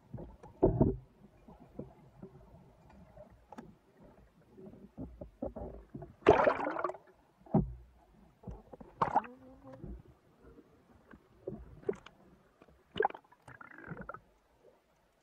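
Underwater sound picked up by a camera mounted on a wooden speargun: irregular muffled knocks, clicks and gurgles of water as the gun is moved and handled, with a louder, brighter rush about six seconds in.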